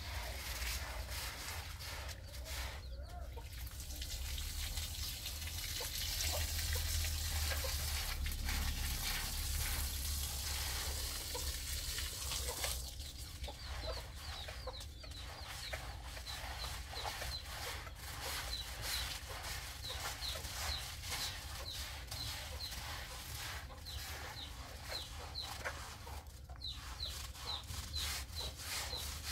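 Chickens clucking, with short high chirps repeating from about halfway through over a steady background hiss.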